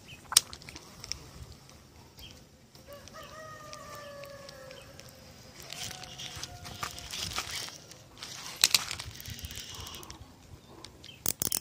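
A rooster crows once, a call of about two seconds starting some three seconds in, with a fainter call after it. Sharp clicks and rattles come from handling a baitcasting reel, the loudest just under half a second in and again about eight and a half seconds in.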